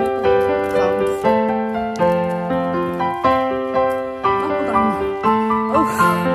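Background piano music: a calm melody of struck notes that ring and fade, a new note or chord about every half second to a second.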